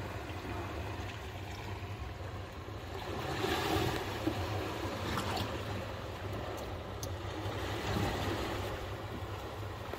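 Steady low rumble with water wash and wind noise aboard a small boat on the water, broken by a few light metallic clicks as a T-handle expansion drain plug is fitted into the hull's brass drain fitting.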